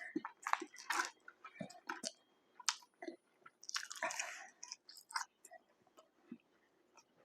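Close-up chewing of McDonald's food: a string of short wet clicks and mouth sounds, with a longer noisy patch about four seconds in.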